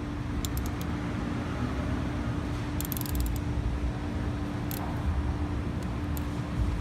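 Steady background hum with one constant tone and a low rumble, over which come a few faint, sharp metallic clicks, a small cluster of them about three seconds in, as a thread tap is turned by hand into a drilled spark plug hole in an aluminium cylinder head.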